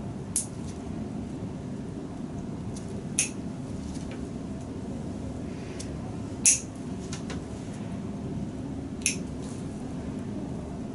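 Toenail nippers snipping through toenails: four sharp clicks about every three seconds, over a steady low hum.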